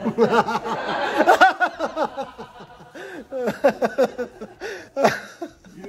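A man laughing: a long run of hearty laughs at the start, then shorter bursts of chuckling.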